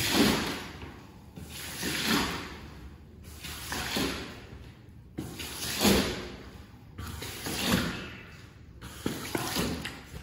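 Wet shaggy rug being worked with a cleaning tool in long, even strokes, about one every two seconds, each stroke a wet swish that starts with a soft thud.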